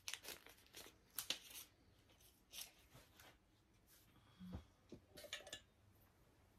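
Faint handling of paper and small objects: quick paper rustles and small clicks in the first second and a half, then a few scattered soft knocks and a brief rustle as things are moved and set down.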